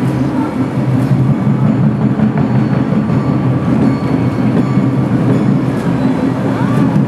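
Electric streetcar rolling slowly along street track: a steady low drone and rumble from its motors and wheels on the rails.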